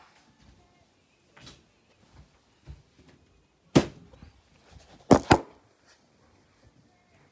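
Sharp knocks of hard objects: one about four seconds in, then two in quick succession a little over a second later, with a few faint bumps between.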